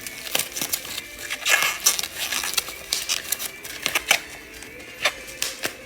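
Plastic packaging being pulled at and crinkled by hand, with irregular clicks and taps as a graded card slab is worked out of its wrapping.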